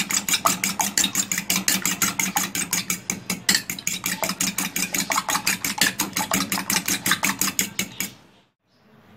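Two eggs being beaten briskly in a bowl, the utensil clicking against its sides about six times a second over a steady low hum. The beating stops about eight seconds in.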